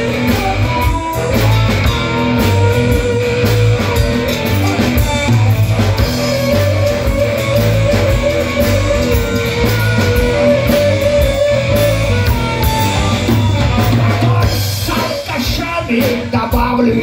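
Live rock band playing an instrumental break between verses: drum kit, electric guitars and bass, with a harmonica playing long held notes over it.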